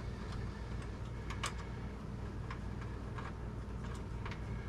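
Scattered light clicks and taps of a small screw and metal computer-case parts being handled, the clearest about one and a half seconds in, over a steady low hum.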